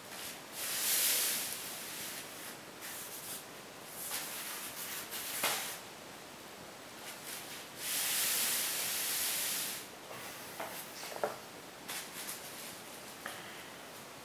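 Two bursts of hissing, one about a second long near the start and a longer one of about two seconds a little past halfway, with a few light knocks and clicks in between.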